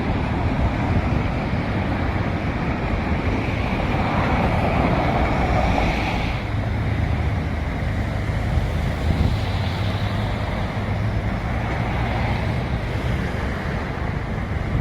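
Steady low engine rumble mixed with wind noise on the microphone.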